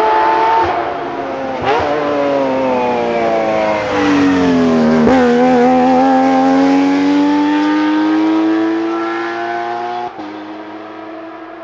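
Porsche 992 GT Rally car's flat-six engine at speed on a rally stage. The engine note falls as the car slows, then rises steadily under acceleration. About ten seconds in it drops sharply at an upshift, and the sound then fades away.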